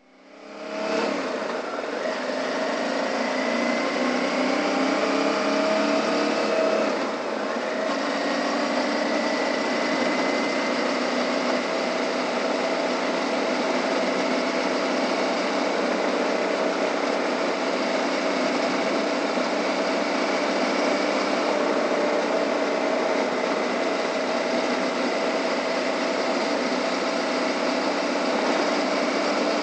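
Suzuki V-Strom 650's 645 cc V-twin engine running under way on a gravel road, mixed with steady wind and road noise. The engine note climbs over the first few seconds, dips briefly about seven seconds in, then holds steady at cruising speed.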